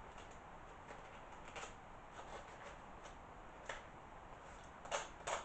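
Small cutter knife scraping and shaving at a model viaduct in short, scratchy strokes, faint at first and a few louder ones near the end.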